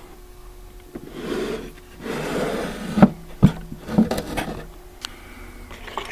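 Wooden drawer of an antique machinist's tool chest being pulled open, sliding with a dry scraping rub in two pulls, about a second in and again two seconds in. Then a few sharp knocks as the tools inside are handled.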